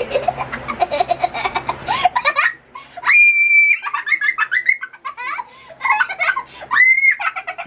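A toddler giggling and shrieking with laughter while being tickled on the feet, in quick bursts broken by a long high-pitched squeal about three seconds in and a shorter one near the end.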